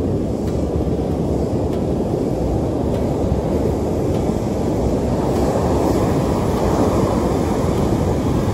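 Heavy surf breaking on a sand beach, mixed with wind buffeting the microphone: a steady loud rush that swells a little about five seconds in.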